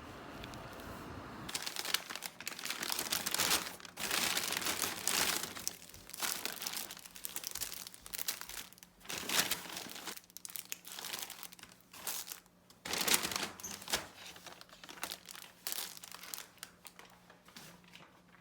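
Packaging being handled, crinkling and rustling in irregular bursts.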